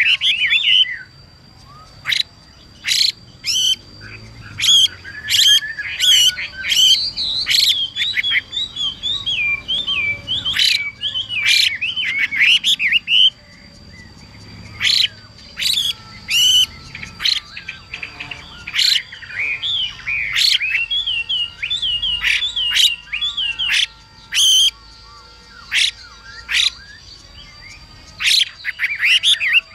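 Chinese hwamei calling and singing: repeated bursts of sharp, high rising notes and quick warbling phrases, broken by short pauses. This is the female hwamei's 'xùy' call mixed with a male's song.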